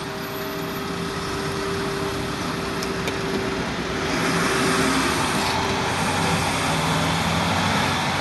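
Water poured from a container into a window frame's sill track, splashing and filling the track, over steady traffic noise that grows a little louder about halfway through.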